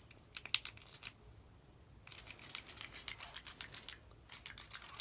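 Model in a Bottle makeup setting spray being spritzed repeatedly from its pump bottle: short hisses of mist, a few at first, then quick runs of about five a second from about two seconds in.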